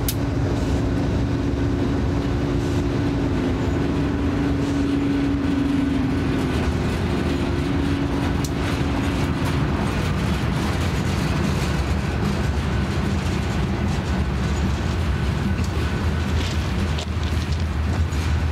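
Freight train passing close by: the drone of a diesel locomotive fades out about ten seconds in, leaving the steady rumble and clatter of covered hopper cars rolling over the rails, with scattered wheel clicks.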